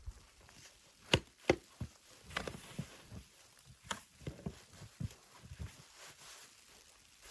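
Two sharp knocks close together a little over a second in, then scattered lighter knocks and rustling, like things being handled or struck during food or firewood preparation.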